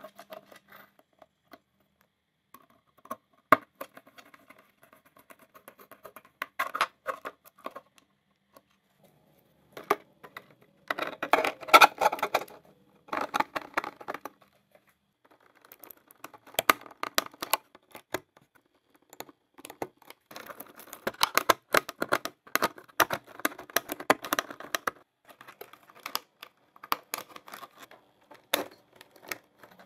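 Dense clicking and rattling of small hard objects being handled, in stretches of a few seconds with short pauses between, with a few single sharp clicks.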